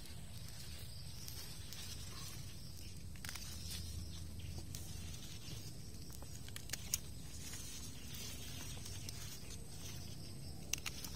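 Hand pruning shears snipping sweet potato vine tops among rustling leaves, with sharp clicks of the blades twice about two-thirds of the way in and again near the end.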